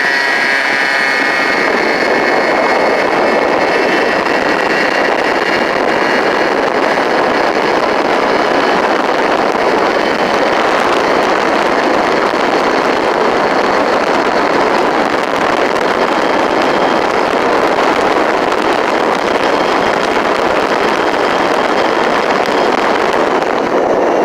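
Hyosung SF50 50cc scooter riding flat out, its engine running high under a steady loud rush of wind on the microphone; a faint whine fades out in the first couple of seconds. The scooter is slow to gain speed and revving too high on variator rollers the rider says are the wrong weight.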